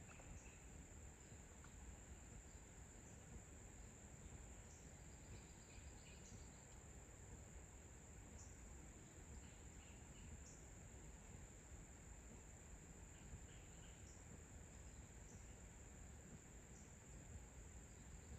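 Faint, steady high-pitched drone of insects calling, with a few faint short chirps scattered through it.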